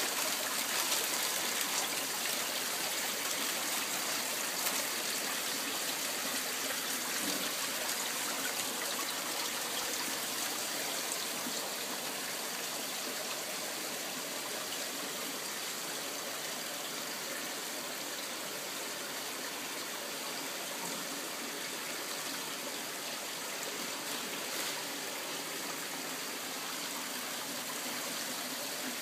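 Running water trickling steadily into a garden fish pond, a little louder in the first ten seconds or so.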